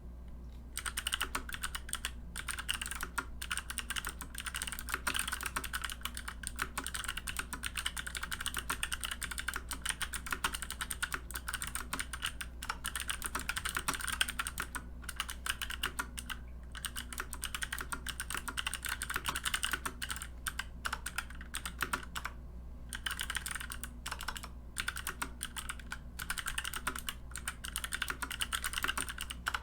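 Fast, continuous typing on a mechanical keyboard with Kailh Box Pink switches, clicky switches with a click bar, in an aluminium case with an aluminium plate and DSA keycaps. It starts about a second in, with a few brief pauses, over a steady low hum.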